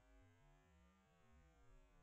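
Near silence, with very faint background music of held notes changing every fraction of a second.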